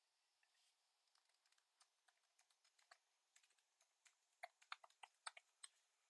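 Near silence with faint computer keyboard typing: scattered light key clicks, a few of them a little louder in the last couple of seconds.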